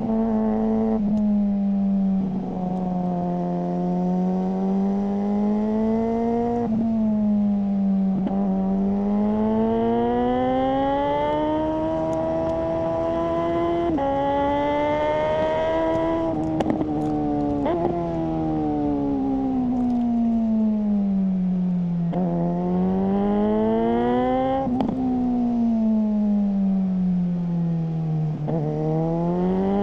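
Suzuki GSR600's inline-four engine breathing through a GPR Ghost aftermarket exhaust while riding. The revs climb under acceleration and drop suddenly at several gear changes, with long falling stretches as it slows, then pick up again.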